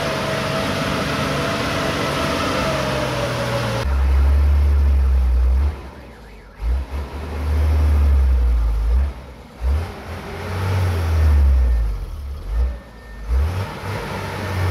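Heavy truck's diesel engine working as the truck pulls through deep mud, a deep rumble that swells and fades irregularly. A steady high-pitched whine sits over the engine for the first four seconds.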